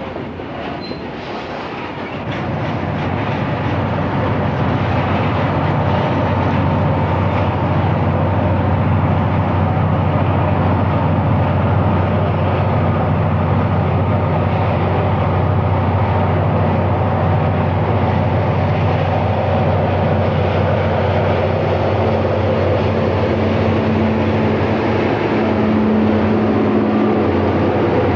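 Freight train of coal hoppers rolling past, then several diesel-electric locomotives running steadily as they come by, their engines' low drone louder from about two seconds in.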